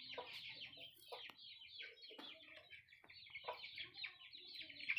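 A brood of chicks peeping constantly, many short high chirps overlapping, with a hen clucking a few times among them.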